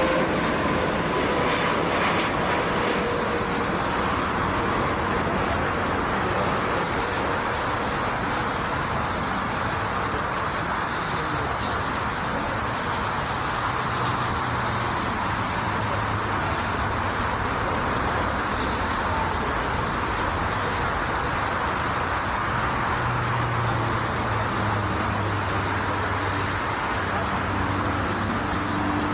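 Jet noise of an Airbus A380's four engines as it lands on a wet runway: a steady rushing noise, with an engine whine that falls in pitch over the first few seconds and a low hum in the second half.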